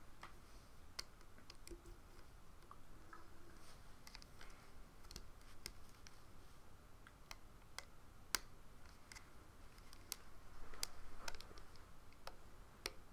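Faint, irregular clicks and taps of a plastic hook and stretched rubber bands against the plastic pegs of a Rainbow Loom while bands are looped, with one sharper click a little past eight seconds and a soft rustle around eleven seconds.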